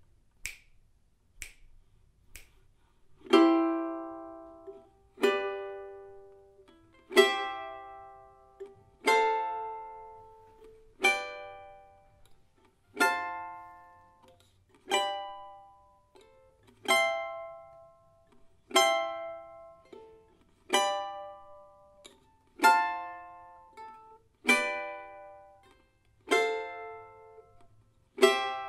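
Charango playing a slow melody in three voices: one three-note chord plucked about every two seconds, each left to ring and fade. Three sharp clicks about a second apart lead in before the first chord.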